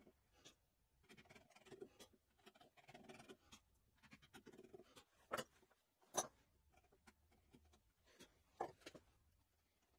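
Steel bench chisel pushed by hand, paring wood chips from the bottom of a hinge mortise: faint scraping and slicing of the blade through the wood, with three sharper clicks as chips break away, around the middle and near the end.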